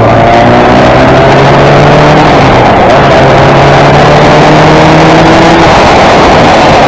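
Van Diemen RF88 Formula Ford's engine at full throttle, heard onboard. It climbs in pitch, drops back at an upshift about two and a half seconds in, climbs again, and the pitch falls away once more near the end.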